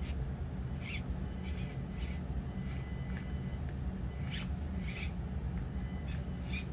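Axial SCX24 micro crawler driving slowly over the course. A steady low drone runs under short rasping scrapes that come every second or so, as the truck works over the obstacles.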